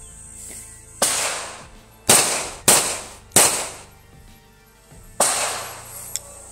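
Five pistol shots from a Grand Power K100: four in a quick, unevenly spaced string about a second in, then a fifth about two seconds later. The last shot empties the magazine and the slide locks open.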